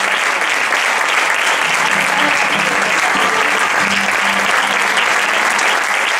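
Audience applauding steadily, a dense unbroken clapping, with music playing faintly underneath.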